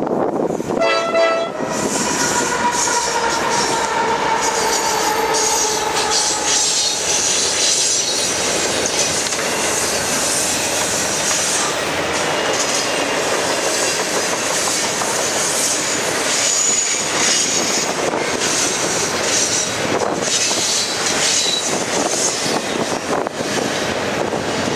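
Freight train's diesel locomotive sounding its horn in the first few seconds as it comes by, then the steady rumble and wheel clatter of double-stack container cars rolling past at speed, with a few brief high wheel squeals.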